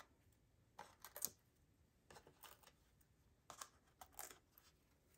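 Faint light taps and paper rustles from a thick white cardstock panel being handled, in a few small scattered clusters.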